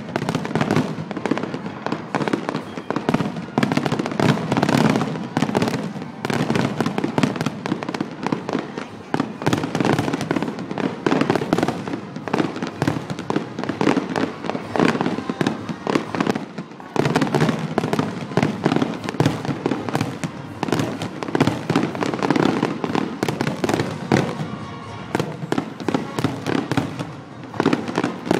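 Aerial fireworks bursting one after another, a dense run of bangs and crackling with a brief lull about two-thirds of the way through.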